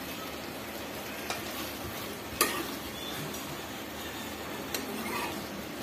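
Spinach and vegetable chorchori sizzling in a stainless steel pot as a steel spoon stirs it. A few light clicks of the spoon against the pot sound through the steady sizzle, the loudest about two and a half seconds in.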